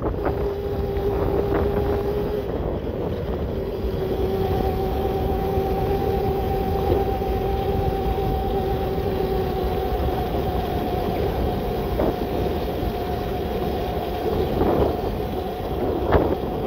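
1500 W electric bike's motor whining steadily under power, its pitch holding nearly level, over a rumble of wind on the microphone. A couple of short knocks come near the end.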